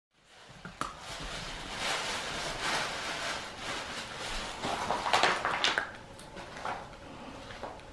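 Miniature poodle gnawing and crunching a dried sweet potato chew, irregular crunches and clicks, loudest about five to six seconds in.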